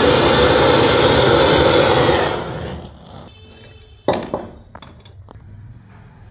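Gas blowtorch flame hissing loudly for about two and a half seconds, then dying away. About four seconds in comes a sharp clink, followed by a few lighter clicks.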